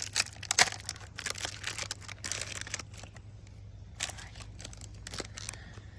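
Wrapper of a Panini Prism trading card pack crinkling and tearing as it is pulled open, dense crackling for about three seconds, then scattered crinkles.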